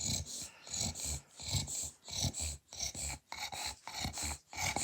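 A small dog snoring loudly in its sleep: a rhythmic, rasping snore with each breath in and out, about two strokes a second.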